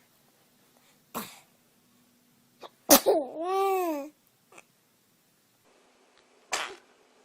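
Small children sneezing, three times: a short sneeze about a second in, a loud sneeze ending in a voiced 'choo' about a second long whose pitch rises and falls, and another sneeze near the end.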